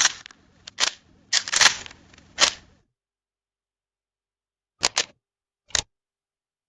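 Camera shutter clicks: a run of sharp mechanical clicks in the first two and a half seconds, then a quick double click and one more single click after a pause.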